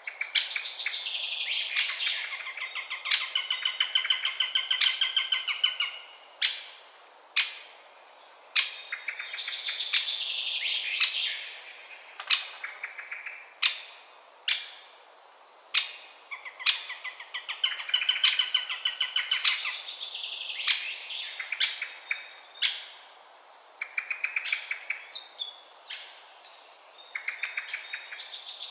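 Eurasian sparrowhawk calling: long, rapid chattering series of notes lasting several seconds each, repeated about five times, with sharp single ticks between the series.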